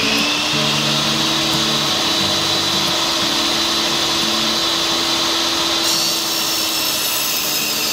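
Benchtop table saw running at full speed: a steady motor hum with a high whine. About six seconds in, the high part of the sound shifts.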